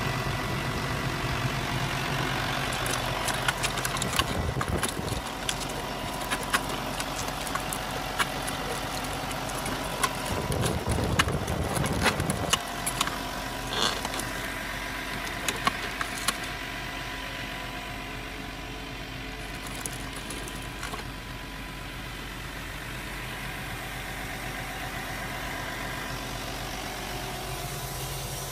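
Homemade 1/5-scale model excavator working: its drive motors run steadily with a thin whine, while scattered sharp clicks of gravel and stones come as the bucket digs. A heavier low rumble rises for a couple of seconds about ten seconds in, and the running is quieter over the last ten seconds or so.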